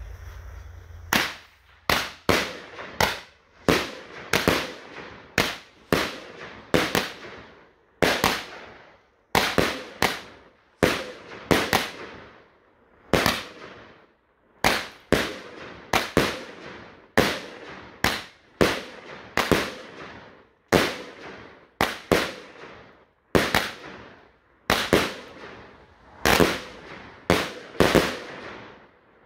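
A 25-shot salute cake firing, a long series of sharp, loud bangs about one a second as its shells burst overhead, starting about a second in.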